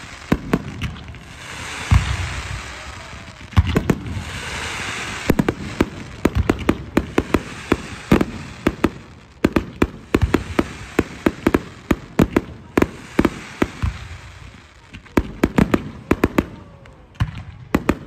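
Fireworks display: shells bursting in a fast, uneven run of sharp bangs and crackles, with hissing stretches in the first few seconds.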